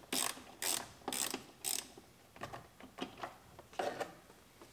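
Ratchet wrench turning a long T30 Torx socket to back out the bolts that hold a steering-wheel airbag. Short bursts of clicking come about twice a second for the first two seconds, then grow fewer and fainter.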